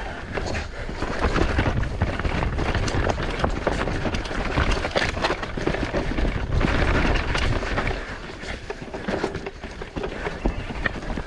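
Mountain bike descending a rough dirt trail: tyres rolling over dirt, stones and debris, with a steady run of sharp knocks and rattles from the bike and a low rumble.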